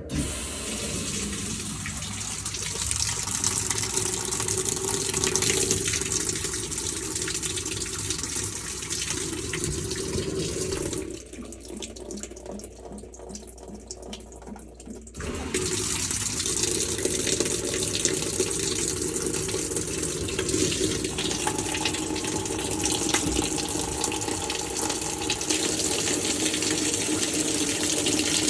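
Water rushing into the tub of a Maytag Centennial top-load washer as its fill valves are opened during the auto test diagnostic. The flow drops away for about four seconds near the middle, then starts again.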